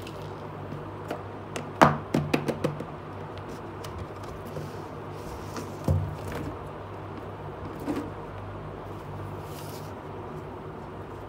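Plastic dolls handled and set down on a hard surface: a quick run of clicks and knocks about two seconds in, a thump around six seconds and a lighter knock near eight seconds, over a steady low hum.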